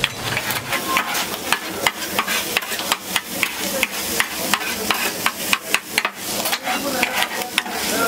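Metal cooking utensils knocking and scraping on a hot cooking surface in quick, irregular clicks, with food sizzling underneath.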